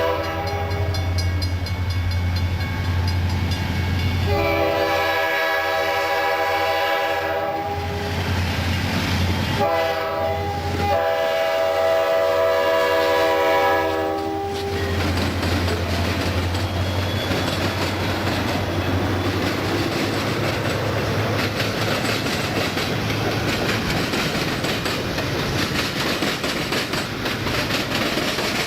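Freight train's diesel locomotive air horn sounding the grade-crossing pattern: the end of one blast, then a long, a short and a long, over the low hum of the diesel engine. After that comes the rumble and clickety-clack of the cars rolling past.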